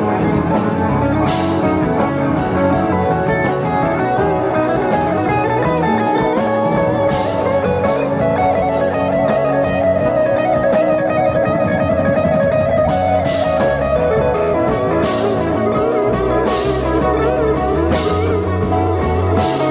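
Live psychedelic rock band playing an instrumental passage: two electric guitars over keyboard and drum kit, with cymbal hits coming more often in the second half.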